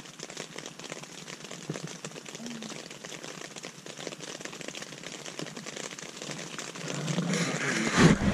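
Rain pattering on the tent fabric: a dense stream of fast, light taps. Near the end a louder rustling swells up over it.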